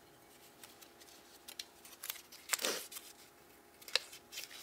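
Quiet rustling and crinkling of a small folded paper slip as it is picked out of a glass jar and unfolded by hand, with a few light clicks.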